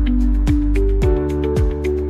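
Background music: held notes over a steady beat of deep thumps, about two a second.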